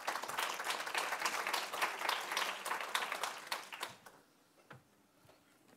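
Audience applause, a dense patter of many hands clapping that fades out about four seconds in.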